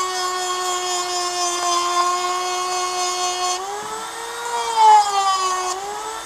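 Dremel rotary tool running with a steady high whine as its bit grinds a rock pattern into the metal of a Swiss Army knife. The pitch shifts up and down about halfway through as the bit is worked against the metal.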